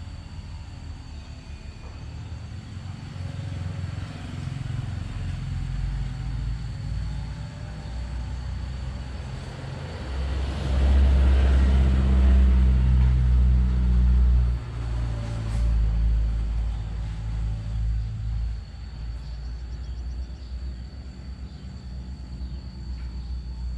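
Low rumble of a motor vehicle's engine, loudest from about ten to fourteen and a half seconds in. A faint steady high-pitched tone runs underneath.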